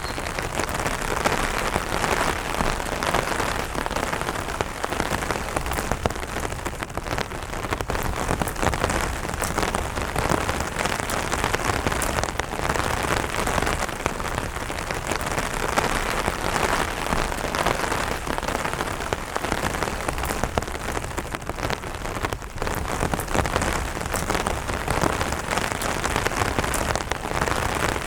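Steady rain falling on an umbrella canopy: a dense, even hiss full of individual drop taps.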